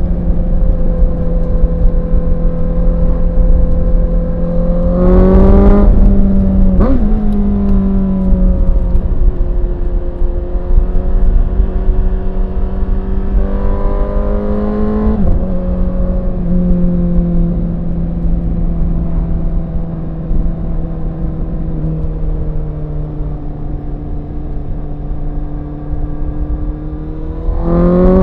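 2017 Honda CBR1000RR SP's 999 cc inline-four engine running at steady high revs. Its pitch jumps up and drops back twice in quick gear changes. Near the end the revs climb steeply as it accelerates hard.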